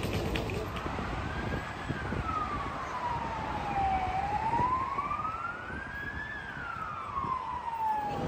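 Emergency vehicle siren wailing: one slow tone rising and falling in pitch, each full rise and fall taking about four seconds, over the hum of highway traffic. It starts about a second in and stops suddenly at the end.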